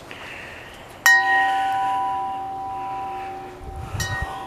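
A metal chime struck about a second in, ringing out with several steady tones that slowly fade, then struck again more softly near the end, with a brief low bump around that second strike.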